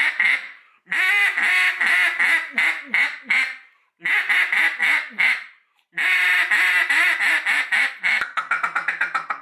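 A DUX single-reed wooden duck call blown in runs of loud quacks, four runs with short pauses between them. Near the end it goes into a faster run of short notes.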